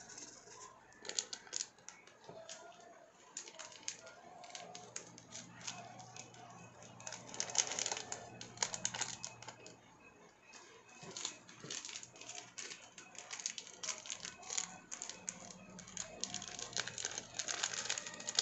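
Seasoning sachets being shaken and tapped out over noodles in a wok, with metal tongs knocking against the pan: irregular quick clicks, rattles and crinkles, busiest about halfway through and near the end.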